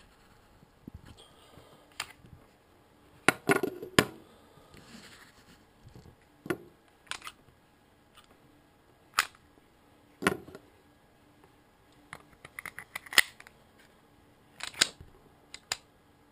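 Kel-Tec PF9 9mm pistol being worked by hand: a series of sharp metallic clicks and clacks from its slide and action, some single and some in quick clusters, spread unevenly with pauses between them.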